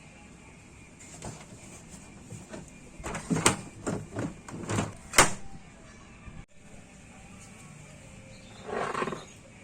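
A run of sharp knocks and clatters, one louder bang about five seconds in, then a short scraping rustle near the end: handling noise from parts and tools being worked.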